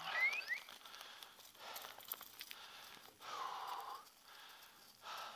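A pointer moving through frosty scrub, faint rustling, with a short whistle right at the start that falls and then rises in pitch, and a brief wavering tone a little after three seconds.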